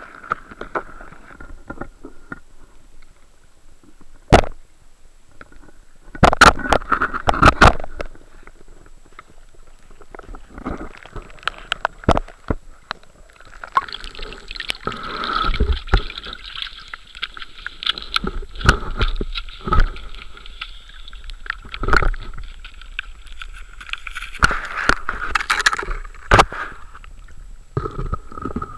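Handling noise from a camera as it is moved underwater and brought up into the air: scattered sharp knocks, with a cluster of loud thumps about six to eight seconds in and more knocks later. Water gurgles and sloshes, and a hiss joins about halfway through.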